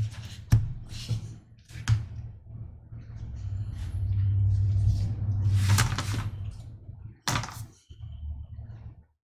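Handling noise from hand stitching on a piece of needlework: a few sharp knocks and bumps against the work, with a longer rubbing, swishing stretch in the middle over a low rumble.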